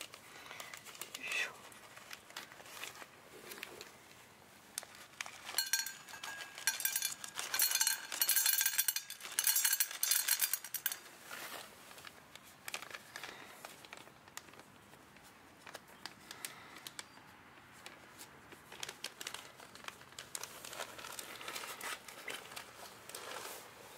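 Crinkling and rustling with scattered clicks, densest and loudest from about a quarter of the way in to nearly halfway through.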